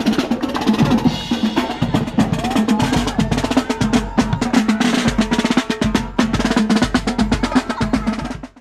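Marching band playing while on the move: snare drums, bass drum and cymbals beat out a busy rhythm over saxophones, trombones and sousaphones. The sound drops away abruptly at the very end.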